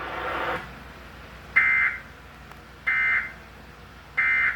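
Three short bursts of Emergency Alert System (SAME) digital data tones from a NOAA Weather Radio broadcast: the end-of-message code sent after the flash flood warning. Each burst is a shrill warbling buzz about a third of a second long, and they come about 1.3 s apart.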